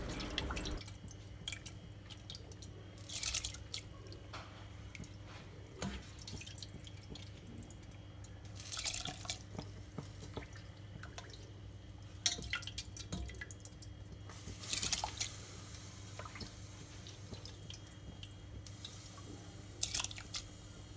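Water heating in a stainless steel pot, with faint drips and bubbles, and several short splashes as handfuls of rice are dropped into the hot water, one near the end.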